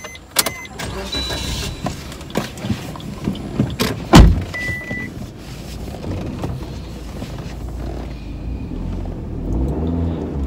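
Inside a car, a passenger climbing into the front seat: rustling, clicks and knocks, one loud thump about four seconds in, and a short beep just after it.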